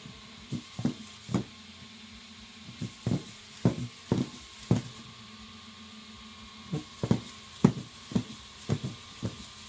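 PhantomX hexapod robot's plastic feet tapping and thumping on a whiteboard as its legs step. The taps come in three irregular bursts with short pauses between them, over a faint steady hum.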